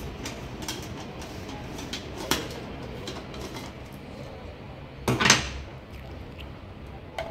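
Kitchen containers and utensils being handled: light clicks and knocks, a sharper knock about two seconds in and a louder clatter about five seconds in.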